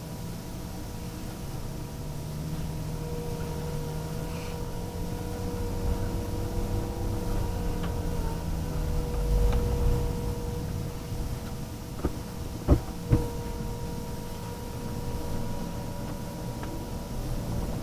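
Inside the cabin of an electric Toyota Previa conversion driving slowly on snowy roads: a low rumble of the rolling car under a faint steady high whine, with two sharp knocks in quick succession about thirteen seconds in.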